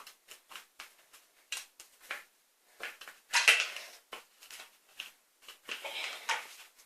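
Sticky homemade slime being worked by hand in a container: a run of small irregular clicks and pops, with a longer squishing rustle about three and a half seconds in and another near six seconds.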